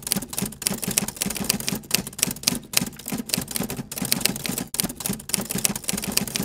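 Typewriter sound effect: a rapid, steady run of key clacks.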